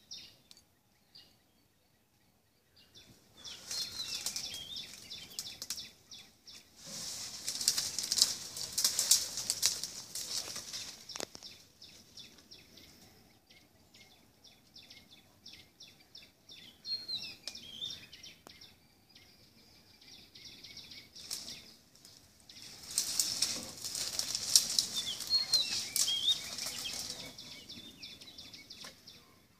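Wild elephant pushing through dry scrub and leaf litter: crackling and rustling of leaves and twigs in four bouts of a few seconds each, with a few small bird chirps.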